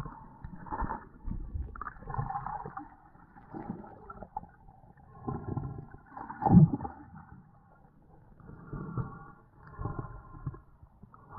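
Muffled underwater sound of a dive: irregular gurgling surges of moving water and bubbles, a second or two apart, the loudest about six and a half seconds in.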